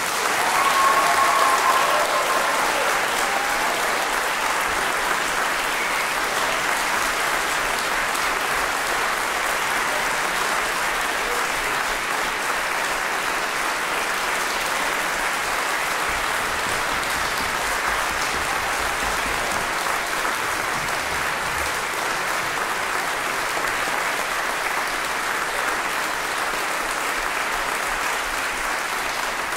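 Audience applauding, rising quickly right after the music stops and then holding steady.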